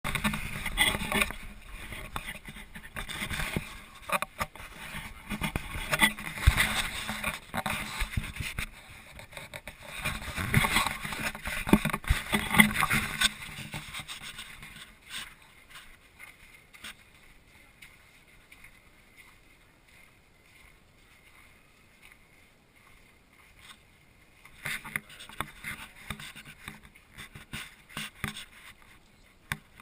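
Irregular rustling and scraping right on the microphone of a camera carried while walking, with scattered clicks. It is loud for the first thirteen seconds or so, fades to faint through the middle, and picks up again for the last few seconds.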